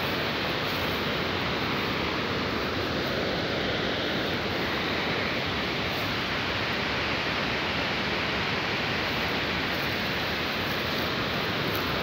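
Steady, even rushing of running water, unchanging throughout.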